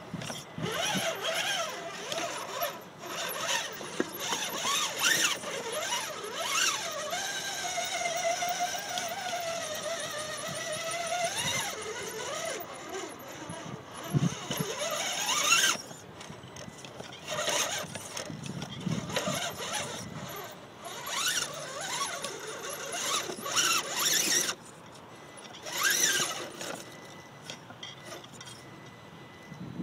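Axial SCX10 RC rock crawler's Holmes Hobbies Torquemaster 540 brushed electric motor and gear drivetrain whining as it crawls, the pitch rising and falling with the throttle in spells with short pauses. A few short knocks come through as it climbs over the rocks.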